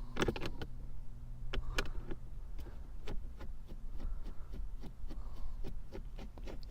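Light, irregular clicks and taps of a Phillips screwdriver and small screws as the screws of a plastic center-console cover are backed out and handled, over a low steady hum.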